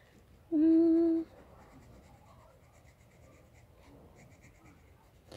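A short hummed note held steady for under a second, about half a second in, then the faint scratching of a coloured pencil on sketchbook paper.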